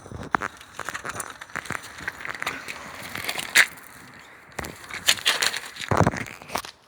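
Irregular crunching and crackling of movement over rough ground, with scattered clicks and a louder knock about six seconds in.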